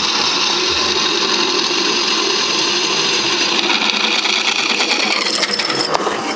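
Drill press running, its freshly sharpened bit boring a hole through a metal door bracket: a steady motor whine mixed with the scraping of the cut. The sound changes about five seconds in.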